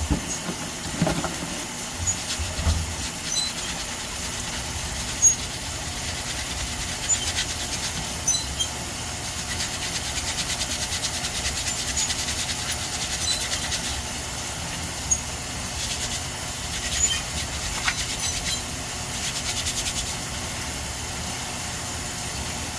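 Water running steadily while freshly cut agate pieces are rinsed and scrubbed, with scattered clicks and knocks of stone being handled.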